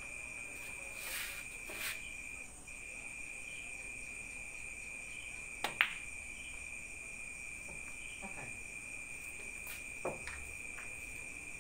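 Cue striking the cue ball and the cue ball clacking into an object ball, two sharp clicks close together about six seconds in, then a single lighter click of balls about ten seconds in. A steady high trill of crickets runs underneath.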